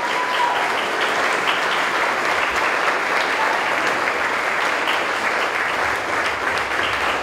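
A roomful of wedding guests applauding steadily, many hands clapping without a break.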